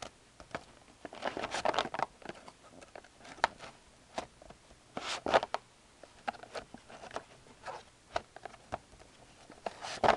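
Rigid plastic top loaders with trading cards in them being shuffled by hand, clicking and sliding against each other in irregular clatters. There are louder flurries about a second in, around five seconds in and near the end.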